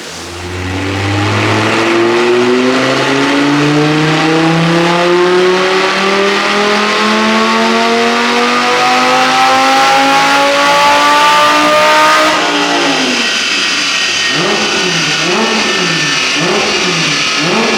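Audi R8's naturally aspirated 5.2 FSI V10, with a SuperSprint exhaust, pulling a full-throttle dyno run and climbing steadily in revs for about twelve seconds. Then the throttle closes, and the engine drops to a lower, wavering note as the run winds down.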